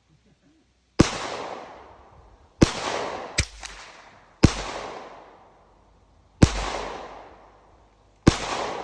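Unsuppressed gunshots: five single shots about two seconds apart, each followed by a long echo that fades away. A smaller sharp crack follows about a second after the second shot.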